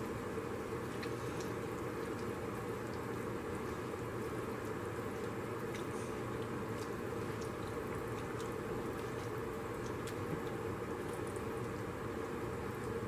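A pot of seafood-boil broth simmering on a gas stove with a steady hiss. Faint scattered bubbling ticks and soft liquid sounds come as a slotted spoon stirs through the broth.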